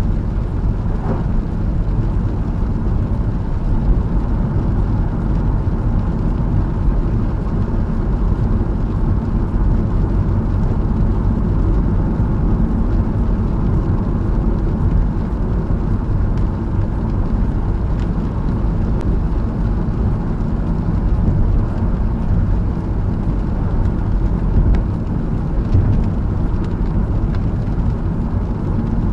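Steady road noise inside the cabin of a Honda Fit cruising at expressway speed on a rain-soaked road: tyres running through water, with the engine underneath. A few faint ticks come through in the second half.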